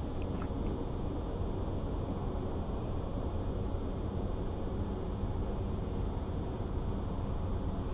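Steady low rumble of a distant four-engine jet cargo aircraft touching down and rolling out on the runway. A short sharp click comes about a quarter second in.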